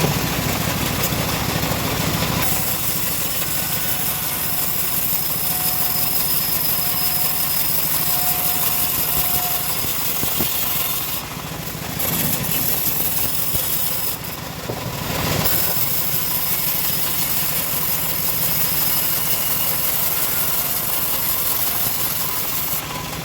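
Homemade bandsaw sawmill running steadily: a low engine hum under a high hiss that drops out briefly twice, about 11 and 14 seconds in.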